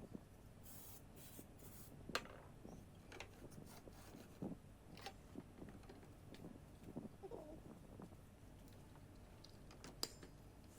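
Near silence with faint scattered taps and short rubbing noises: light handling of wooden pieces, a wooden runner being slid and seated in its slot.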